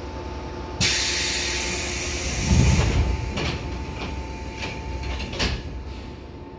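Sudden loud hiss of compressed air from the 415 series car's pneumatic door engines as the doors close, followed by a heavy thud as they shut and a few sharp clicks.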